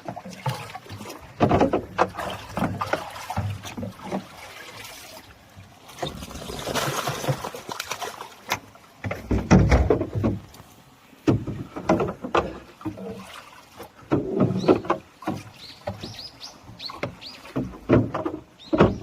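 Water splashing and irregular knocks as live crucian carp are let out into a fishing pond, with a longer rush of water about a third of the way in and a heavy splash just after.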